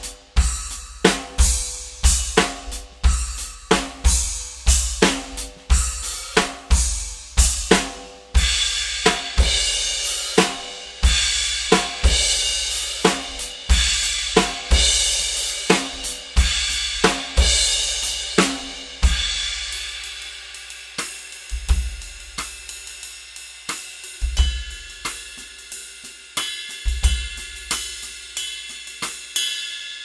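Drum kit played with B20-alloy HQ CYMBALS two and efx cymbals: a steady groove of kick drum, snare and hi-hat hits about twice a second, then a wash of crash and ride cymbals over the beat from about 8 s in. After about 19 s the playing thins to a few kick hits under ringing cymbals, which decay at the end.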